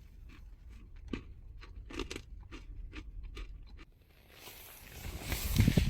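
A person chewing a crunchy snack close to the microphone: a quick series of sharp crunches for about four seconds. Then a rustling hiss with a low rumble rises and is loudest near the end.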